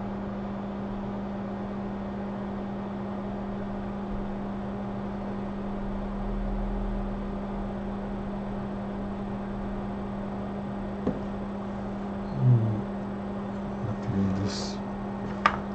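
Steady electrical hum with an even fan-like hiss from the microsoldering bench equipment. In the last few seconds there are a few short low handling sounds and one sharp click.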